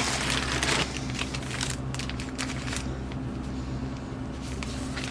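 Crinkling of small paper and plastic parts packets being handled, fading after about a second into scattered light clicks and taps, over a steady low electrical hum.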